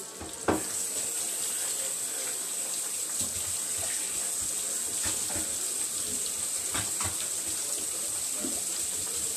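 Kitchen tap running steadily into a stainless steel sink, starting with a knock about half a second in, with light clicks of handling throughout.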